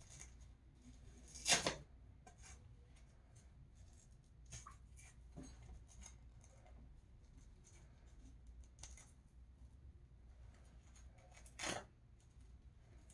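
Faint rustling and scratching of an elastic bandage being unrolled and wound around a wrist and hand, with two louder short rustles, one about a second and a half in and one near the end.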